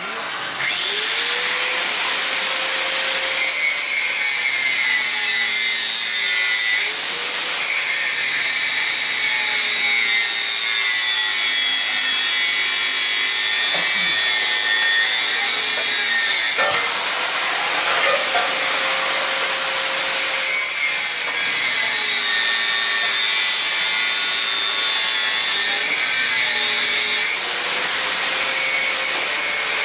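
LPG cutting torch hissing steadily as its flame cuts through an iron pipe.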